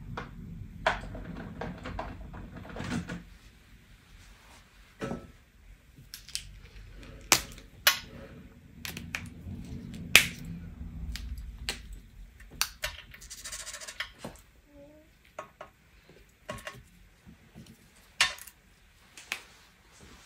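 Scattered sharp clicks and taps of craft tools and paper being handled on a glass-topped cutting mat, with a short rustle of paper about two thirds of the way through.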